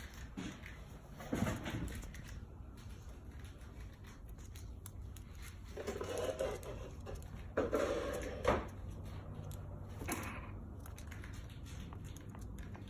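Guinea pig's claws ticking and scuffing lightly on a wooden floor as it moves about, with two brief muffled sounds about six and eight seconds in.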